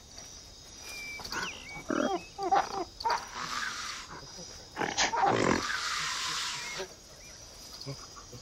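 Apes grunting and giving short hooting calls, then two longer harsh, hoarse calls about three and five seconds in, over a steady high insect chirr.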